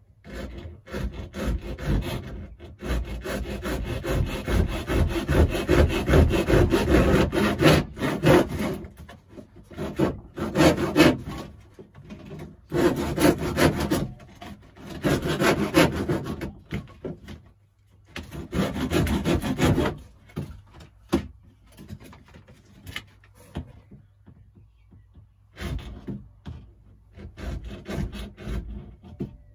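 A hand tool rasping back and forth in quick, repeated strokes, in several bouts with short pauses and lighter strokes near the end, as a cut is worked on.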